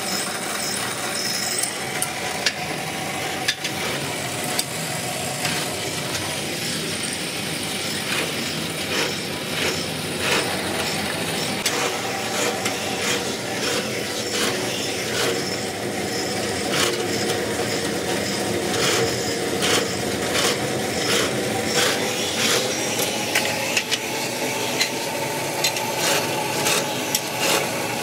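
Drill press running and boring rivet holes through brake-lining material: a steady motor hum with a rasping, scraping cut. Many short sharp clicks through the latter part.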